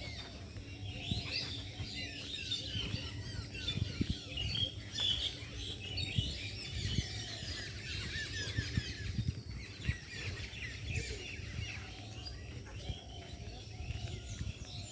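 A chorus of many small birds chirping and calling, with dense overlapping short chirps, over a low rumble with occasional low thumps.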